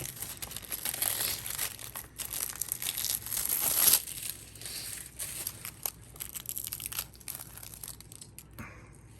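Plastic shrink-wrap on a Blu-ray case being torn and crinkled as it is unwrapped, loudest for the first four seconds, then fainter crackles and clicks.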